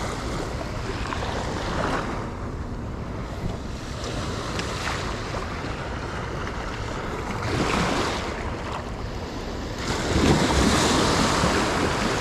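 Sea surf washing in over a shallow shore, with wind buffeting the microphone. The wash swells a few times and is loudest near the end.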